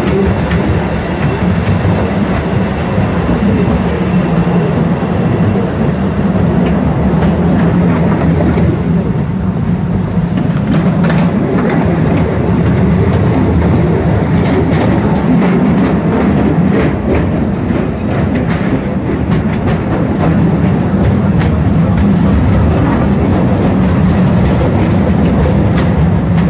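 Postojna Cave's narrow-gauge open-carriage train running along its track through a narrow rock tunnel: a steady low rumble of wheels and drive, with scattered clicks and clacks from the rails from about a third of the way in.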